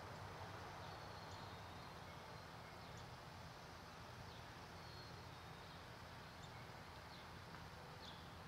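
Faint outdoor ambience: a steady low background hiss and rumble with a few short, faint bird chirps scattered through.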